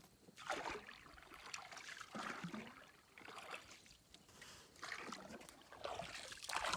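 Canoe paddle dipping and pulling through the water in slow strokes a second or two apart, with water trickling and splashing off the blade.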